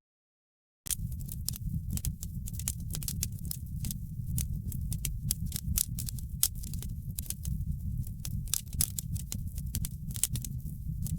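Wood fire crackling, with frequent sharp pops and snaps over a steady low rumble of flame. The sound is cut off entirely for about the first second, then comes back in.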